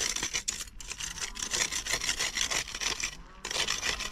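Rapid rough scraping and rubbing strokes as caked soil is scraped off a freshly dug yam tuber, with a short pause a little after three seconds.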